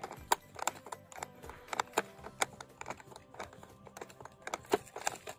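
Irregular sharp plastic clicks and ticks, several a second, from cable ties being threaded and worked through the cable ports of a fiber optic dome closure's base, over faint background music.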